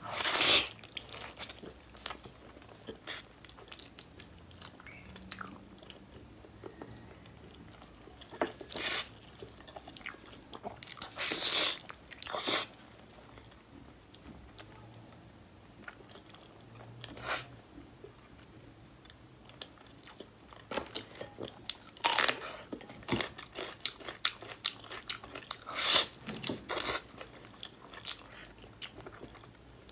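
Close-miked eating sounds: biting and chewing bone-in braised pork, with many small wet mouth clicks. Louder bites come every few seconds.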